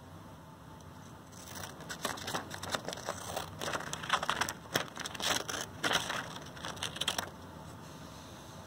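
Scissors snipping through a sheet of paper: a run of crisp, crunching cuts that starts about a second and a half in and stops about a second before the end.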